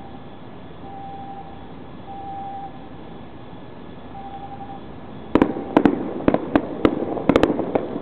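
Fireworks shells bursting: a rapid volley of about eight to ten sharp bangs starting about five seconds in, each trailed by a rumbling echo.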